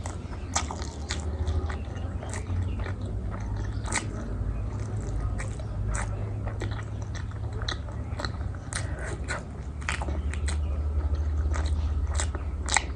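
Close-miked eating sounds: a person chewing, with sharp wet mouth clicks and smacks at irregular intervals over a steady low hum.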